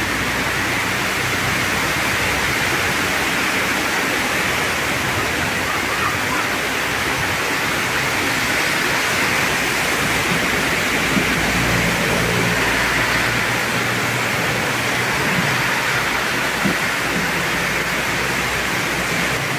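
Heavy rain pouring down steadily: a dense, even hiss with no breaks.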